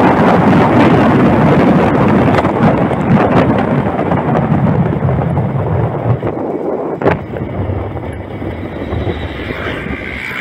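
Wind and road noise rushing over the microphone of a moving vehicle, slowly fading as it slows down. A sharp click about seven seconds in.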